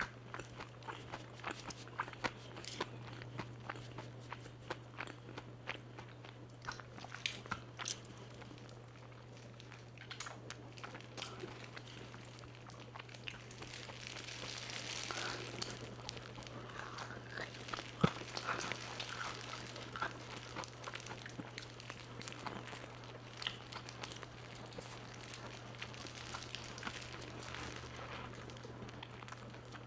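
Crispy fried chicken being bitten and chewed close to the microphone: many short crisp crunches, heavier and denser midway, with one sharp loud crack. A steady low hum runs underneath.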